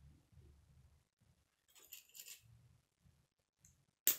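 K'nex plastic pieces being handled and fitted together: a brief clicking rattle about two seconds in and one sharp snap near the end, over faint low knocks of handling.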